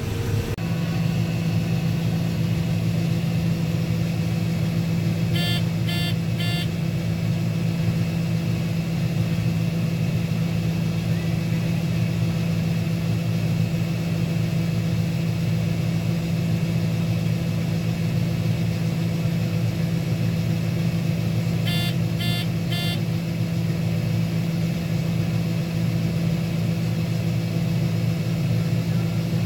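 Combine harvester running steadily while shelling corn, a constant low engine and machine drone. Two sets of three short electronic beeps sound, one about six seconds in and another around twenty-two seconds in.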